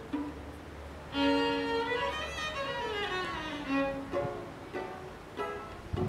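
Intro theme music: a melody of held and short pitched notes, with one long note sliding down in pitch midway. It stops abruptly at the end.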